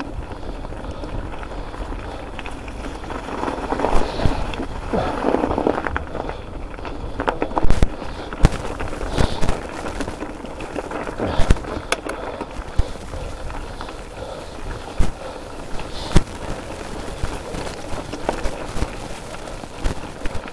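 Mountain bike rolling over a rough trail: a steady rumble of tyres on stony ground, broken by frequent sharp knocks and rattles from the bike over bumps.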